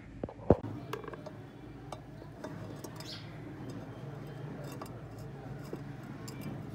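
An electric churner motor's wound stator being handled and shifted inside its metal housing: one sharp knock about half a second in, then scattered light clicks and ticks.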